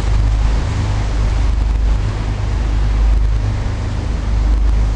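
Sightseeing riverboat's engine running with a steady low drone, under a steady rush of wind noise on the microphone.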